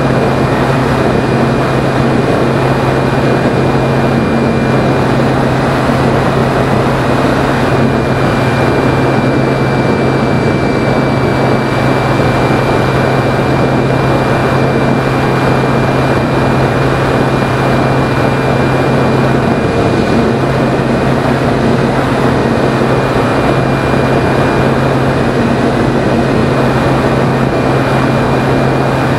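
A Phoenix 2000 RC motor glider in flight, heard through its onboard camera: the electric motor and propeller make a steady low drone with a thin high whine, over wind rushing past the airframe. The sound holds level and unchanged.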